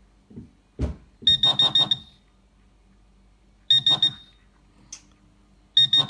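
Garrett Pro-Pointer AT pinpointer alerting in groups of quick high-pitched beeps with a low buzz under each one, as a copper-plated steel 1 crown coin is brought within about 5 cm of its tip. There are three groups of beeps, and a single soft knock comes just before the first.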